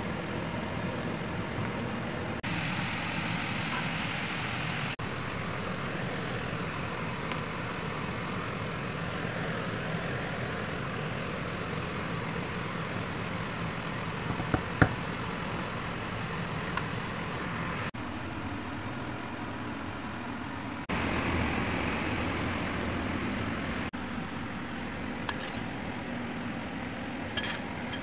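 Steady background hum, with pasta being tossed in a pot; a sharp utensil clink about halfway through and a few light clinks near the end as a spoon works on the plate.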